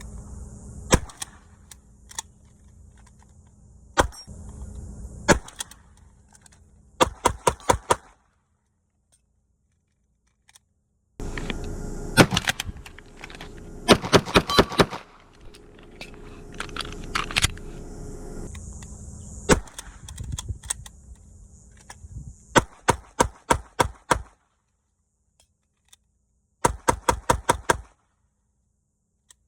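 Gunfire from a 12-gauge shotgun and a 9mm pistol in several bouts: spaced single shots, then quick strings of five to eight rapid shots, with pauses between bouts.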